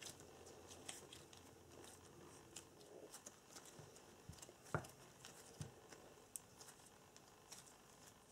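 Near silence, with faint scattered clicks and soft squishes of hands kneading and squeezing soft soap dough to work mica powder into it, and a slightly louder soft knock about halfway through.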